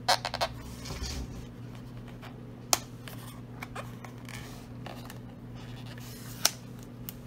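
Thin plastic deli-cup lid being pried and worked loose by fingers. There is a quick rattle of clicks at the start, then sharp single snaps just under three seconds in and again near the end, with soft rubbing between them over a steady low hum.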